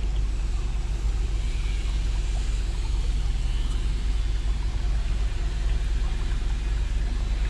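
Steady rumbling hiss of a small creek's water running, with no distinct events.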